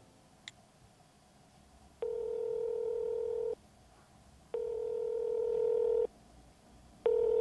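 Telephone ringback tone heard through a phone held to the ear: a steady low tone about a second and a half long, sounding twice with about a second's gap and starting a third time near the end, as the call rings waiting to be answered. A faint click comes about half a second in.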